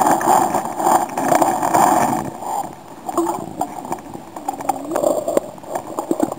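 River water heard through an underwater camera: a muffled, gurgling rush of current and bubbles, louder for the first couple of seconds, with a few short knocks.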